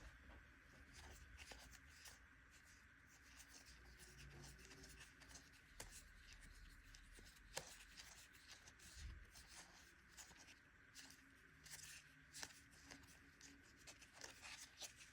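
Faint soft rustling and scattered light clicks of Magic: The Gathering trading cards being handled and flipped through one by one, over quiet room tone.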